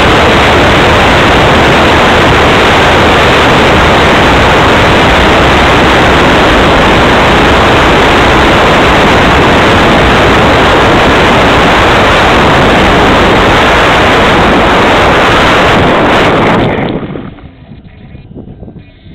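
Loud, even rushing noise from an RC model plane, picked up by the camera on its wing: propeller and airflow noise during landing and the rollout on grass. It drops off sharply about 17 seconds in as the motor stops, leaving only faint rustling.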